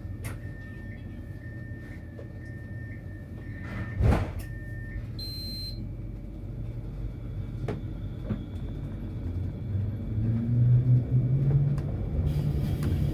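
Tram rumbling with a thin steady high tone, a single thud about four seconds in and a short high beep just after, then its motor rising in pitch as the tram pulls away near the end.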